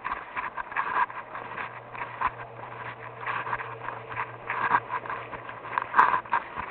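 Footsteps scuffing along, roughly one to two steps a second, with a short sharp click near the end.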